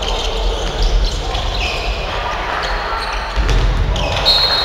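Handball match play in an echoing sports hall: the ball bouncing on the wooden court, with shoes and players' calls around it. Near the end a long, high whistle sounds, the referee's whistle.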